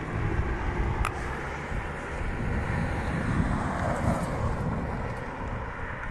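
Wind rumbling on the microphone over the sound of a car driving away along the road, with a short click about a second in.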